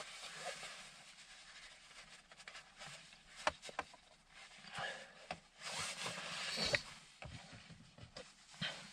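Hands rubbing and scraping at a gear-shift knob's leather cover while working it off, with scattered small clicks and taps; the scraping grows louder about five seconds in.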